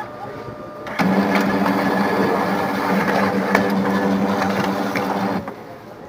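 Pantum laser multifunction printer's drive motor and gear train running through a copy job, a steady mechanical hum with scattered clicks that starts suddenly about a second in and cuts off after about four and a half seconds. The gear noise is the fault being shown, which the owner traces to a gear pressing too hard against the gear beneath it.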